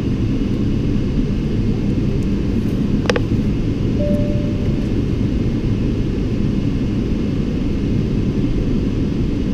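Steady low rumble inside the cabin of a Boeing 777-200LR as its GE90 engines run while it taxis for takeoff. There is a single sharp click about three seconds in and a brief steady tone about four seconds in.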